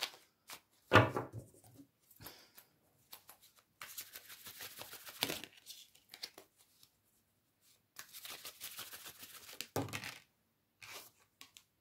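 A deck of tarot cards being shuffled by hand: two bouts of papery rustling, with a knock about a second in and another near the end.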